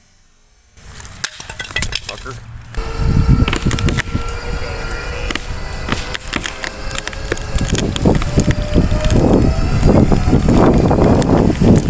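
Wood of a large tree trunk cracking and popping again and again as the hinge fibres tear and the tree begins to tip over, the cracking building and getting louder toward the end. Under it runs a steady motor drone.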